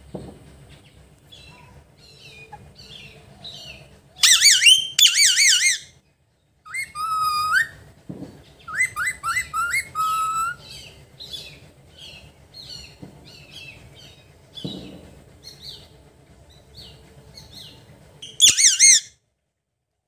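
Alexandrine parakeet calling: a string of soft chirps, with loud wavering screeches about four seconds in and again near the end, and whistled notes in between.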